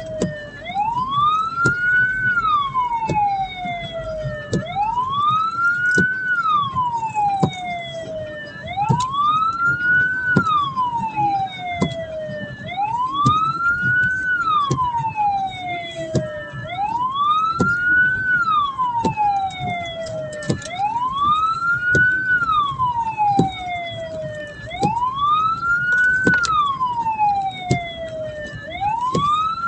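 Hearse siren wailing in a slow, even cycle, rising and then falling back about once every four seconds, over the vehicle's engine and road rumble.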